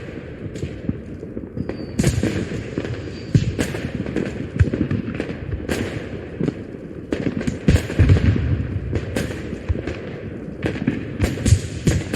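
Dubbed-in fireworks sound effect: aerial shells bursting in a rapid, irregular string of sharp bangs and crackles over a continuous low rumble.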